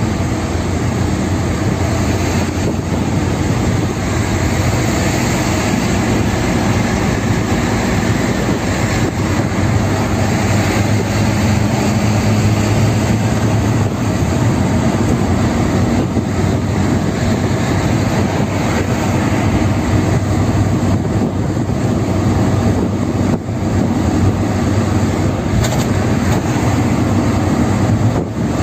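Steady drone of a car driving at speed on a highway: engine and tyre noise with rushing air, unbroken throughout.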